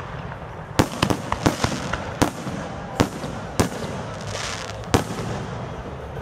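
Aerial fireworks bursting: a quick cluster of sharp bangs in the first two seconds, then single bangs spaced about half a second to a second apart, with a brief crackle about four and a half seconds in.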